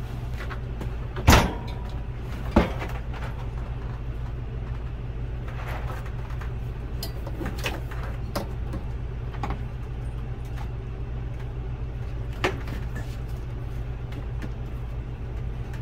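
Clunks and knocks as a replacement RV refrigerator cooling unit, steel tubing and boiler, is set down and shifted on the refrigerator's back, over a steady low hum. Two sharp knocks come in the first few seconds, with another near the end and lighter clicks between.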